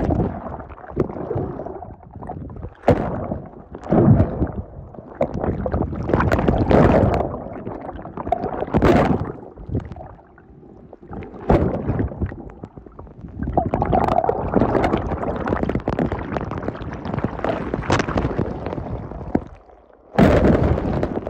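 Surf washing over a phone at the waterline: muffled sloshing and gurgling of water over the microphone, in irregular surges with short lulls between them.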